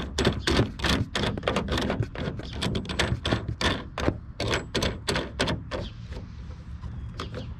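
Quick, repeated clicking and clacking as the plastic star knob of a Pro Controll EZ Mount clamp-style bow-mount bracket is turned along its threaded steel rod, tightening the clamp onto the boat's gunwale. The clicks come about four a second and thin out near the end.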